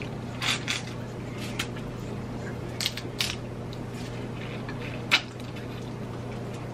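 Wet eating sounds from someone eating seafood-boil crab by hand: a scattering of short smacks and sucks from lips and fingers, the sharpest about five seconds in, over a steady low hum.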